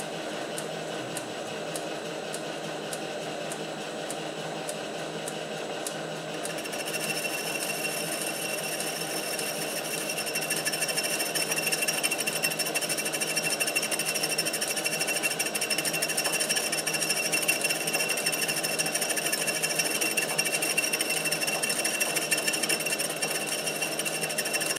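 Metal lathe running while a hand-fed high-speed steel bit takes a light cut of about five thousandths on a brazed bearing hub, truing up its run-out. The cut adds a steady high whine about six seconds in and grows a little louder around ten seconds.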